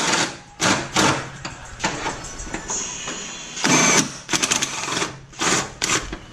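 Impact wrench run in several short bursts, hammering the engine-mount bolts loose.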